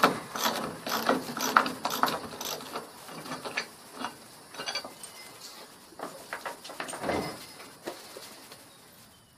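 Socket ratchet wrench clicking as lag bolts are backed out of a gate hinge. The clicks come thick and fast for the first few seconds, then thin out and fade.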